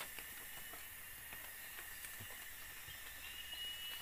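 Steady high-pitched insect chorus of a tropical forest, with a short high trill near the end, and faint scattered clicks and rustles of footsteps on dry leaf litter as a person walks through undergrowth.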